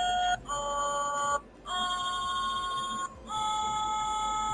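Fisher-Price Sing-a-ma-jig plush toy singing in its electronic voice: a string of held notes, each about a second long with short breaks between them, the pitch changing from note to note.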